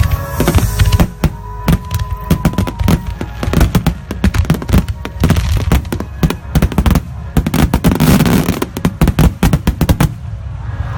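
Grand-finale fireworks barrage: aerial shells bursting in rapid succession, many sharp bangs close together, with a dense run near the end that stops suddenly about ten seconds in.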